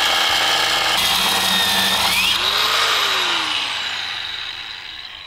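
Electric angle grinder with a cutoff wheel cutting into an aluminum transmission housing, running steadily at full speed. About two and a half seconds in it is released and winds down with a falling whine that fades away. The blade is not cutting the aluminum very well at all.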